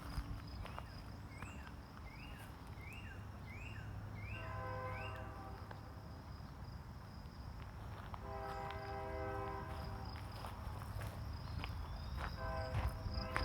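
A distant train horn sounds in held blasts: a short one about four seconds in, a longer one past the middle, and another starting near the end. Over the first few seconds a bird repeats a short rising chirp about twice a second, and an insect drones on a steady high note throughout.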